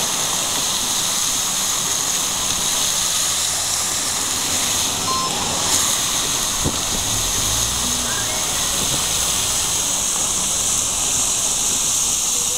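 Steady hiss and rush of water jetting high into the air from a burst underground water main, with the spray spattering down onto the pavement and road.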